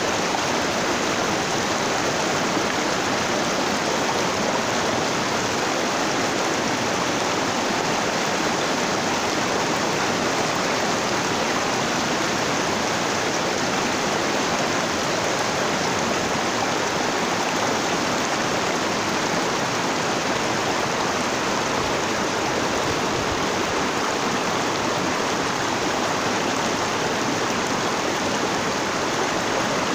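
Shallow mountain stream running over boulders and small rapids: a steady rush of water.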